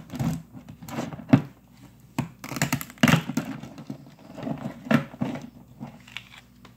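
Zip-top plastic bags of frozen blue crabs being handled and shifted on wire freezer shelves: crinkling plastic with irregular cracks and knocks of the hard frozen crabs.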